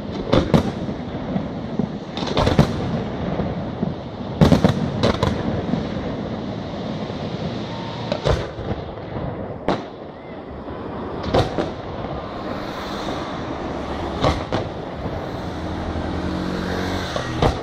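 Aerial firework shells bursting in a display: about a dozen sharp bangs at irregular intervals, some in quick pairs, over a steady hiss of burning stars.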